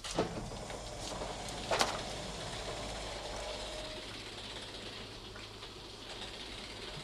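Steady low background hum with faint hiss, broken by two sharp clicks: a light one just after the start and a louder one about two seconds in.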